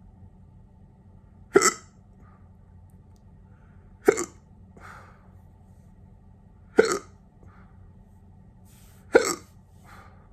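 Hiccups from an induced bout: four sharp hiccups about two and a half seconds apart, each followed about half a second later by a fainter, softer sound.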